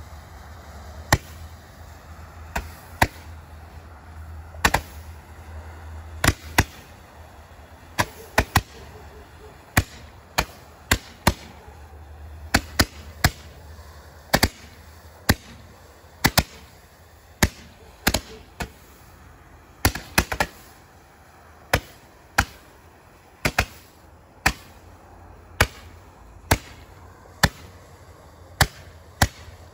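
Roman candles firing from a rack one after another, each shot a sharp pop, about one a second and now and then two in quick succession.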